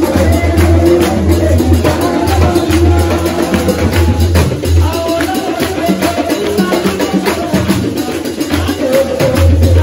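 Congregation singing a church praise song with hand-clapping, over percussion and a loud low beat.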